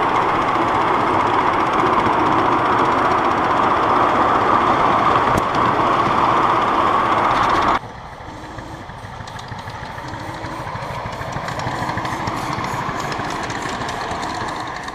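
Miniature ride-on railway train rolling past on its track: a steady loud rush of wheels on rails. About eight seconds in it cuts abruptly to a quieter scene of a small locomotive approaching, with a light rhythmic ticking that grows slowly louder.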